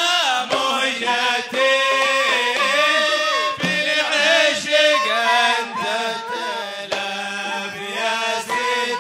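Men singing a Hadhrami zarbadi qasida in a wavering, ornamented Arabic melody, with hand drums struck now and then.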